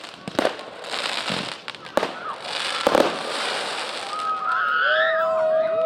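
Consumer fireworks going off: three sharp bangs, the last a quick double, with crackling between them; the crackling dies away about four seconds in.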